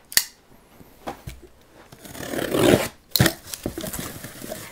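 A cardboard shipping box being opened by hand: a sharp knock, then a long scraping tear like packing tape being ripped off, a thump, and cardboard flaps rustling.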